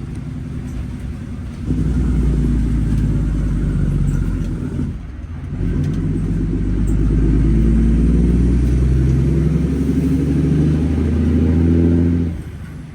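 Semi truck's 600-horsepower Cummins diesel running under load, the engine note building about two seconds in, dipping briefly around five seconds in, then pulling steadily again before easing off near the end.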